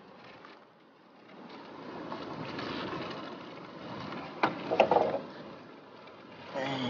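Shallow river water swishing and lapping around a bamboo raft as it is poled into the bank, with a sharp knock about four and a half seconds in and a short clatter just after.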